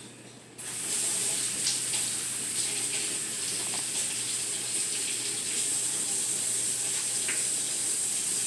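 Kitchen sink tap turned on, water running steadily into the sink for hand washing, with a few small clicks.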